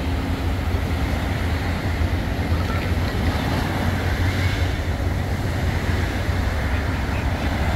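Wind buffeting the microphone, a steady choppy low rumble, over the wash of small waves breaking on a shingle shore.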